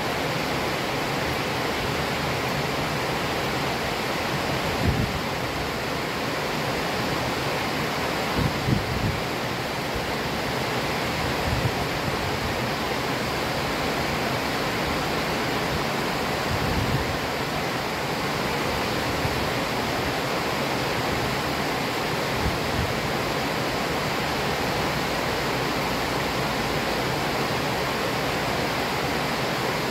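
Heavy rain falling steadily: a dense, even hiss. A few brief low thumps stand out over it, around five, nine and seventeen seconds in.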